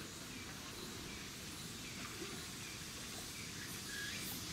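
Faint outdoor ambience: a steady hiss with a few faint, short bird chirps scattered through it.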